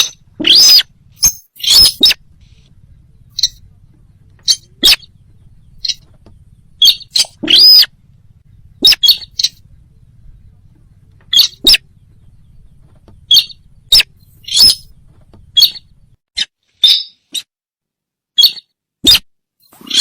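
Sintar bird lure call: short, loud chirps with a bending pitch, repeated at irregular intervals about once or twice a second. It is a call meant to draw the birds in.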